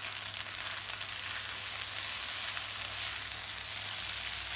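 Chicken spaghetti sizzling in a nonstick frying pan over a high flame as it is stirred with a spatula: a steady crackling hiss, with a low steady hum beneath.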